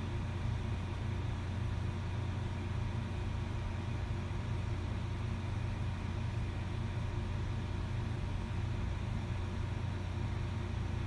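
Helicopter cabin noise: a steady low drone of rotor and engine with faint steady whining tones above it, unchanging throughout.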